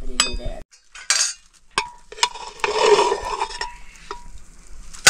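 Metal utensil clinking and scraping against a metal cooking pot while stirring. There are several separate clinks, some ringing on briefly, and a longer scraping stretch about three seconds in.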